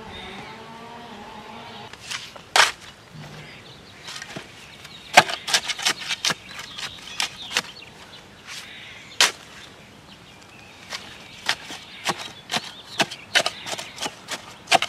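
Shovel blade chopping and scraping into clay soil around a buried water meter box while backfilling the trench. It makes a string of irregular sharp strikes and crunches, the loudest about two and a half, five and nine seconds in.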